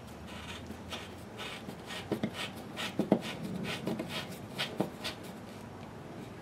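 Threaded wall anchor being screwed into sheetrock with a hand-turned Phillips screwdriver: irregular gritty scrapes and small creaks as its threads cut into the gypsum and it draws down flush.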